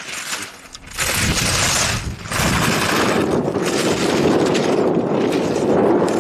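Slalom skis scraping and carving loudly across hard snow as a racer passes close by, starting suddenly about a second in, with sharp clacks of slalom gate poles being knocked.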